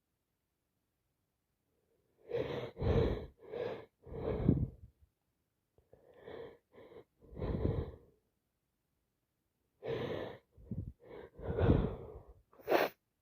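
Congested breathing and sniffling from a person with a heavy head cold, in a string of short breathy bursts with a sharper, higher one near the end.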